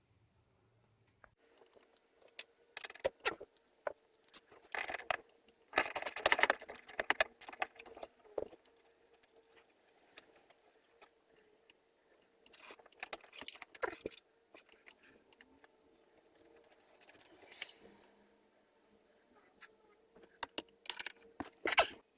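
Bursts of clinking, rattling and rustling as hand tools and electrical wire are handled, in several separate spells. A faint steady hum runs underneath.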